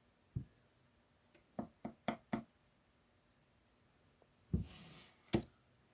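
Faint handling sounds of a hand-held stone: a few light clicks and taps in the first half, then a brief rustle and one more click near the end.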